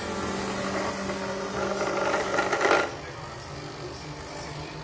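Electric coconut grater running with a steady motor hum. Coconut meat grinds loudly against its toothed drum about two to three seconds in and stops abruptly, then the motor hums on more quietly at a lower pitch.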